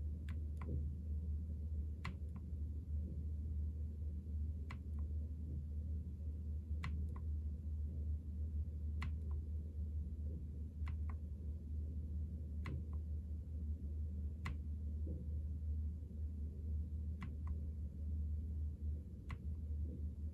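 Single key presses on a NuPhy Air75 V2 low-profile mechanical keyboard, clicking about once every two seconds with a few quick double presses, as keys are pressed to cycle through the backlight effects. A steady low hum runs underneath.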